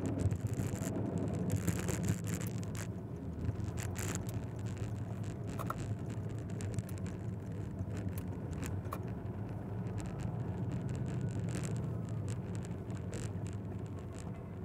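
Road vehicle running steadily while travelling, a constant low engine and road hum with a few faint clicks and rattles.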